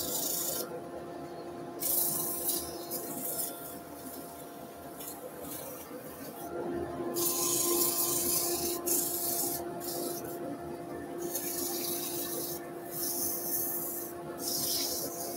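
400-grit abrasive on a small hand pad sanding the rim of a sycamore plate spinning on a wood lathe: a series of hissing passes of one to two seconds each, over a steady machine hum.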